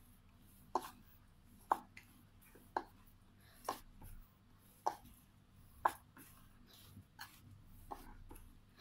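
Risen yeasted pao bun dough being kneaded by hand on a floured wooden board: a short thud of the dough and board with each push, about once a second, six strong ones and then a few weaker ones near the end.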